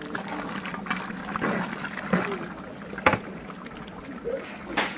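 Meat simmering in its own released water in a large aluminium pot over a wood fire, a soft liquid bubbling, with a couple of sharp knocks, the strongest about three seconds in.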